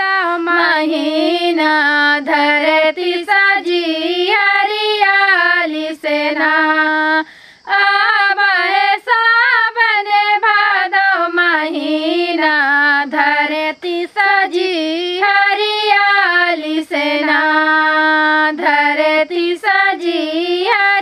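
Two women singing a Hiduli folk song of the Vindhya region without instrumental accompaniment, in long held phrases, breaking briefly about seven seconds in.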